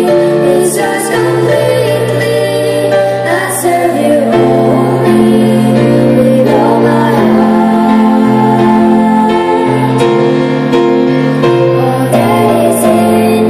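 Three girls singing a Christian song together into microphones, carried through the arena's sound system over an instrumental accompaniment, with long held notes.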